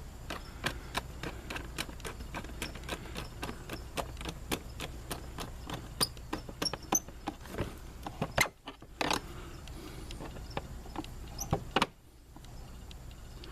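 Hand ratchet clicking in quick irregular runs as bolts on the Dodge Journey's transmission are tightened down, with two brief pauses.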